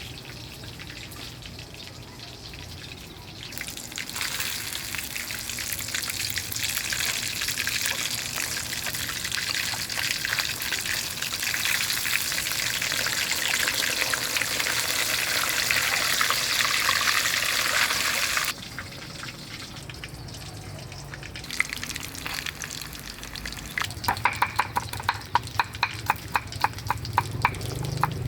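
Fish frying in hot oil: a sizzle that starts a few seconds in, grows louder and stops suddenly after about fifteen seconds. Near the end comes a run of sharp, regular knocks, about three a second.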